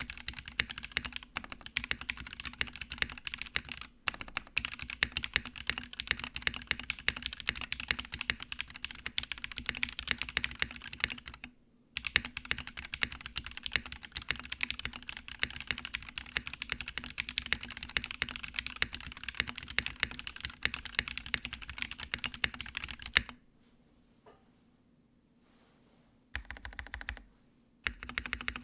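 Fast, continuous typing on a polycarbonate Project Keyboard Sirius with lubed Gateron Black Ink V2 linear switches, a POM plate and PBT keycaps. The typing breaks off briefly about twelve seconds in. About five seconds before the end it stops for a few seconds, then resumes in short bursts.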